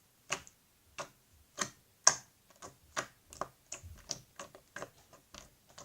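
Clear slime squeezed and worked in the hands, making a run of sharp clicking pops, two or three a second, coming a little faster in the second half.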